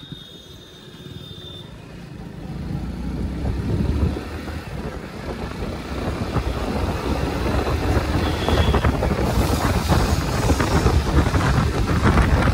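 Motorcycle riding along a road: engine running, with wind noise on the microphone that grows steadily louder as the bike picks up speed.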